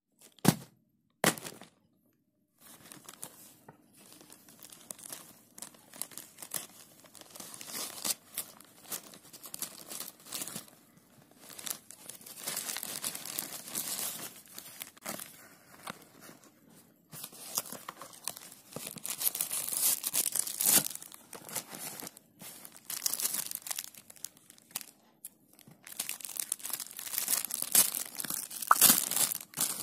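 Clear plastic bag and card packaging being handled and pulled open: crinkling and rustling that comes and goes in bursts with short pauses. Two sharp knocks come in the first second and a half.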